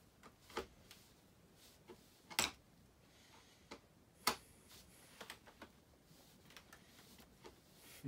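Faint, scattered clicks and taps of hands working a Dometic refrigerator's plastic door handle and its screws loose, the two loudest about two and a half and four seconds in.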